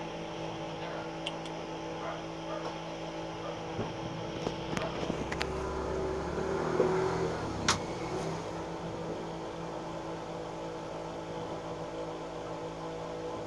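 An engine running steadily, with scattered sharp metallic clicks and clinks from hand tools, the loudest about eight seconds in, and a brief louder rumble just before it.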